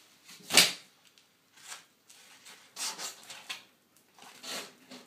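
Skateboard decks and their packaging being handled: a sharp knock about half a second in, then several short rustles of wrapping and cardboard about a second apart.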